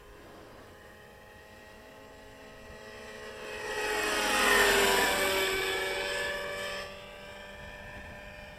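Radio-controlled model helicopter flying past close by: its whine and rotor sound swell to loud about four and a half seconds in, drop in pitch as it passes, then fall away sharply near seven seconds.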